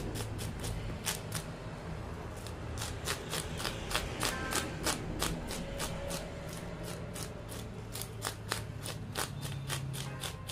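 Knife scraping the scales off a carp on a wooden chopping block: quick, repeated rasping strokes, a few a second.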